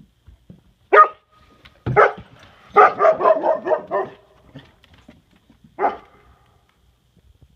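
Great Pyrenees livestock guardian dogs barking: a single bark about a second in, another a second later, then a quick run of about half a dozen barks, and one more bark near the end.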